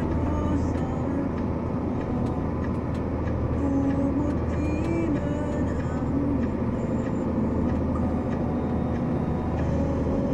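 Vehicle engine running at a steady low drone while driving through knee-deep floodwater, with the water sloshing and churning against it.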